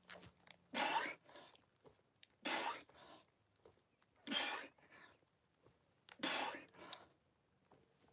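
A man's sharp, forceful exhalations as he does pull-ups, one hard breath with each rep about every two seconds.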